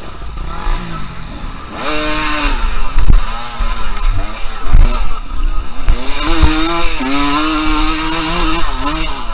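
Enduro dirt bike engine revving up and down as it picks over rocks, with several sharp knocks. Near the end the engine holds a steadier pitch.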